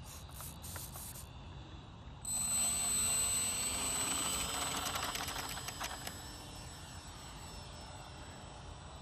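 Electric brushless motor and propeller of a small RC model biplane throttling up about two seconds in for takeoff: a high whine rising in pitch, loudest for the next few seconds, then steadier and fainter as the plane flies off.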